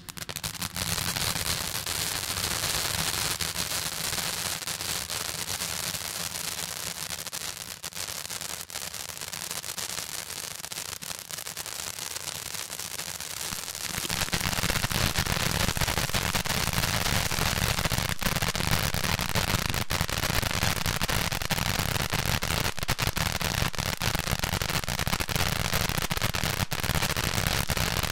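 Cutting Edge 'Watching You' fountain firework catching and spraying, a steady loud hiss with fast, dense crackling. About halfway through it gets louder and the crackle thickens as the fountain's spray grows.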